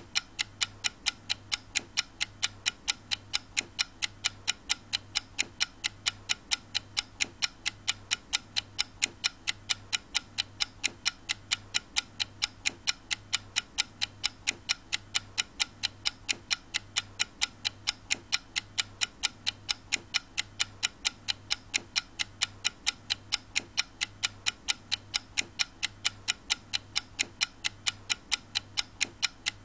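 Clock ticking in a quick, perfectly even rhythm, with a faint low hum underneath.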